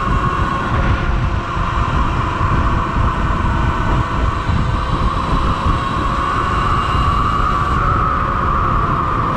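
Sur-Ron electric dirt bike riding along: heavy wind rush over the microphone with the electric motor's steady whine on top, the whine climbing slightly and easing back near the end.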